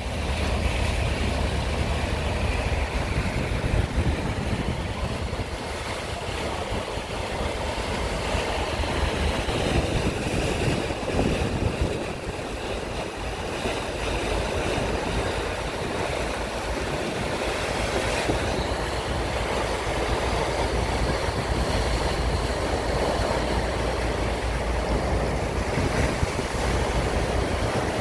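Sea water rushing and churning in the narrow gap between two ships' hulls moored side by side, over a steady low rumble and wind buffeting the microphone.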